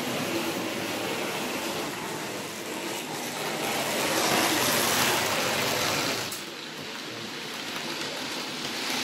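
00 gauge model trains running on the layout: their motors whirring and wheels rumbling along the track as a steady hiss. It is loudest about four to six seconds in as a locomotive comes close, then drops off sharply.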